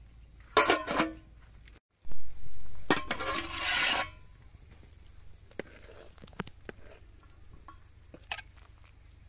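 Metal lid and steel ladle clanking against an aluminium cooking pot: a sharp clatter about half a second in, a longer, louder clatter from about two to four seconds in, then a few light clinks as the ladle stirs the pot.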